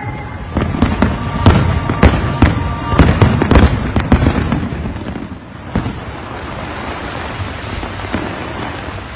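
Aerial fireworks shells bursting in quick succession, a rapid series of sharp bangs and crackles for about the first five seconds. The bangs then stop, leaving a steady rushing noise.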